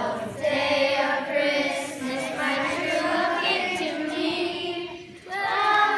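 A group of children singing a Christmas carol together, with a brief break between phrases about five seconds in.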